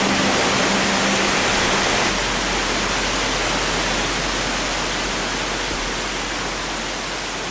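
Waterfall: water cascading down a steep rock face, a steady rushing roar. A held music chord fades out within the first two seconds.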